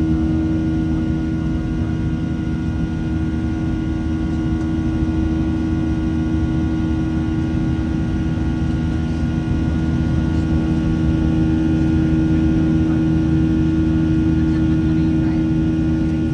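Steady cabin noise inside a Boeing 737-700 during the climb: the CFM56-7B turbofans hum with fixed tones over a constant rush of airflow.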